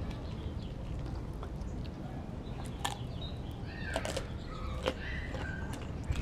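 A Doberman chewing raw meat, with a few sharp crunching clicks spaced about a second apart, over a steady low rumble. Short bird chirps come through in the middle.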